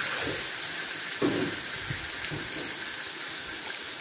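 Chicken kurma sizzling and bubbling in an aluminium wok, a steady hiss, with a single short knock about a second in.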